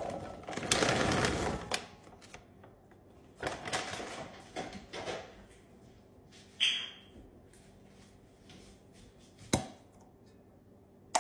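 Peeled garlic cloves pouring out of a bag into an enamelled cast-iron Dutch oven: a dense clatter of cloves hitting the pot for the first couple of seconds. Then scattered rustles and a few single sharp clicks and knocks.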